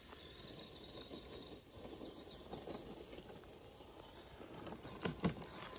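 Footsteps crunching and rustling through dry fallen leaves, with a sharper thump about five seconds in.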